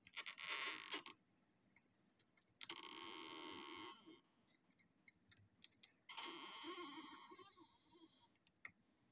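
Stretch-release adhesive strip under an iPhone 7 Plus battery being pulled out with a crackling, creaking sound, in three pulls of one to two seconds each.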